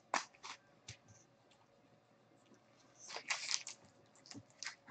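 A few light clicks as a stack of cards is set down. About three seconds in, the gold foil wrapper of a trading-card pack crinkles and tears in short bursts as it is ripped open.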